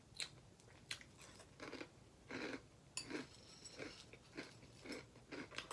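A mouthful of Apple Jacks cereal being chewed, in a string of short faint crunches about every half second to second, with a brief ringing click about halfway through.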